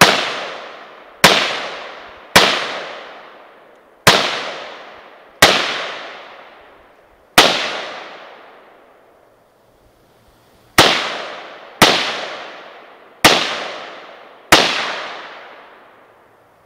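Russian-made SKS rifle in 7.62×39 fired semi-automatically, ten single shots, each with a long echoing tail. Six shots come about a second apart, then a pause of about three seconds, then four more. The shooter is emptying the rifle's ten-round magazine from a stripper-clip load.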